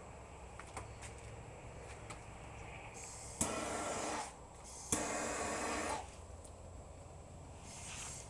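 Two bursts of hissing, each starting with a sharp click and lasting about a second, about a second and a half apart: a lighter being fired to relight the fuse of firework shells packed into a printer.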